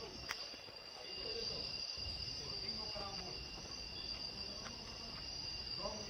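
Night insects, such as crickets, keeping up a steady high-pitched chirring drone. A low rumble joins about a second in.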